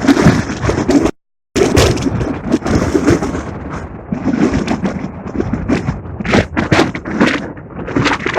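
Strong gusty wind buffeting the microphone in loud, uneven rumbles and thumps, with a brief total cut-out just after a second in.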